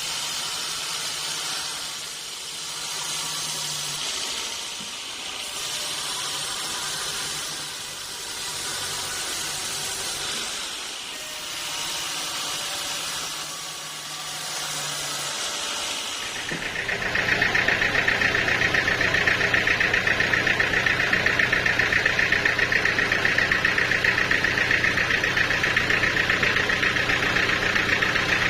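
Sawmill machinery running: a hissing noise that swells and fades every few seconds, then, about halfway, a louder steady high whine with a low hum under it.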